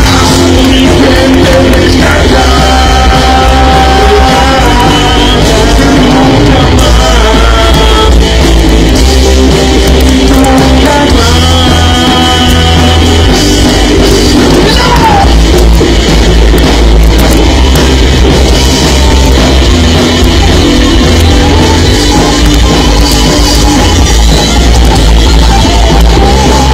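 Rock band playing a song live, loud and steady throughout.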